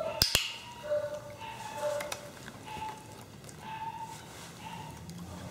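A dog-training clicker clicking once, press and release heard as two sharp clicks close together just after the start, marking the dog for sitting at heel. Faint short tones follow.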